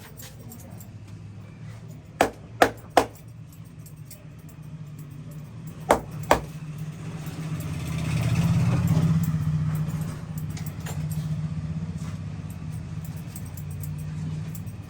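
Sharp cracks from a barber's hands during a head massage: three close together about two seconds in and two more around six seconds, over a steady low rumble that swells about eight seconds in.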